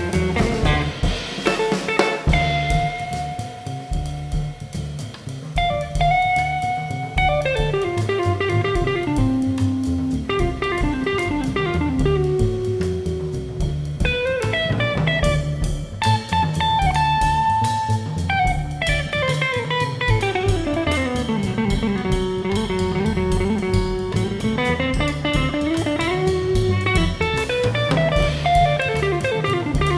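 Instrumental jazz trio playing: a solid-body electric guitar plays a lead line of held notes and quick runs over upright double bass and drum kit. In the second half the guitar plays a long run of notes that falls and then climbs back up.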